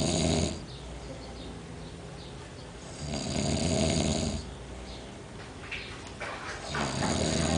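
A man snoring in his sleep: one long snore about every four seconds, with quieter breathing between. A snore is ending as the sound begins, a full one comes about three seconds in, and another starts near the end.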